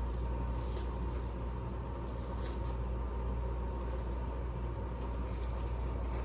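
Steady low background hum with a faint high tone and hiss, broken by a few faint soft sounds.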